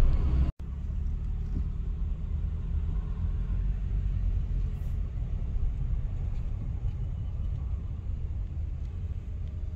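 Steady low rumble of a car driving, heard from inside the cabin: engine and road noise. The sound drops out completely for an instant about half a second in.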